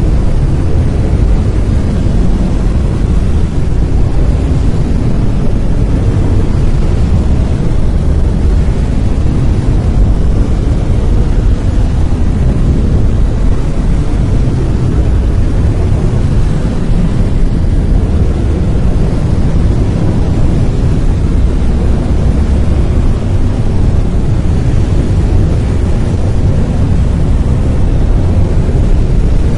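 Brown noise: a loud, steady, even rumbling hiss, deepest at the bottom and growing fainter toward the top, with no tones or events in it.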